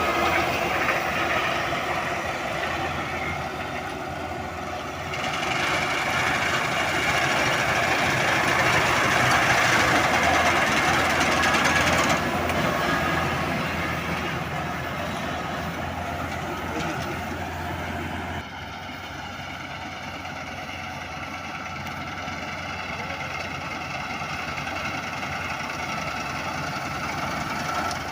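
Combine harvester's engine and machinery running steadily. It grows louder for several seconds, then fainter, and changes abruptly about two-thirds of the way in.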